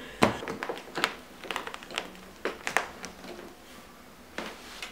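A woman's short cough just after the start, then scattered light taps and clicks at irregular intervals.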